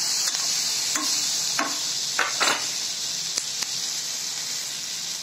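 Onions, green capsicum and garlic sizzling steadily in hot oil in a non-stick kadai, while a spatula stirs them, scraping and knocking against the pan several times in the first few seconds.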